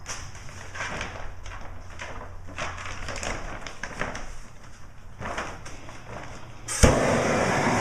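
Plastic shrink wrap sheeting crinkling and rustling as it is handled. Near the end, a shrink-wrap heat gun starts with a sharp pop and then runs with a loud, steady rushing noise.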